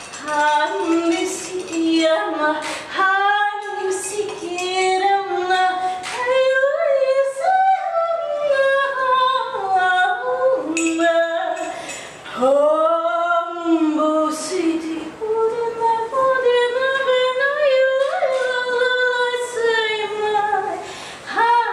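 A woman's voice singing without accompaniment: long held notes and slow sliding glides, with a wide swoop that rises and falls about halfway through.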